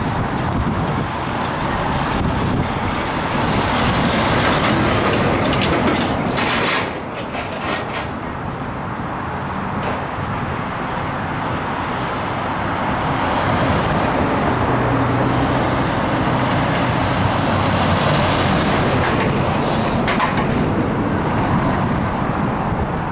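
Road traffic: cars and trucks driving past on the road, with a steady tyre and engine noise and a low engine hum swelling as one vehicle passes about two-thirds of the way through.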